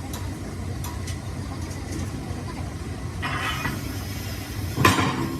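A steady low engine rumble, with a short rush of noise about three seconds in and a loud knock near the end.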